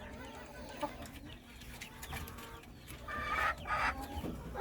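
Hens clucking: soft calls at first, then a few louder calls in the last second and a half.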